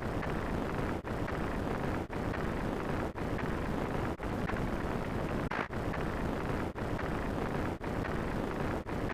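A noisy rumble sound effect, cut off and restarted about once a second with a brief gap between repeats.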